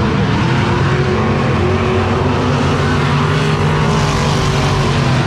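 A pack of dirt-track race cars running together on the oval, several engines at high revs overlapping and rising and falling in pitch.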